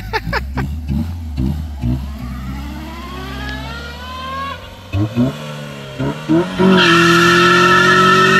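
Honda Accord's F22 four-cylinder breathing through an aftermarket intake, revved in sharp blips and then pulling with a rising pitch that drops at a shift. Near the end the tyres break loose into a loud, steady squeal as the car does a burnout.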